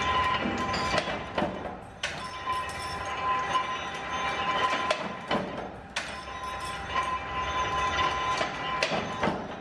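Mechanical power press running: a steady machine whine over a low rumble, broken by a few sharp metallic clanks, two close together about a second in and two more near the end.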